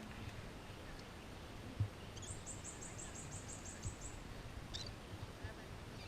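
A bird calling: a quick, even run of about a dozen very high notes lasting about two seconds, followed a moment later by a single shorter call.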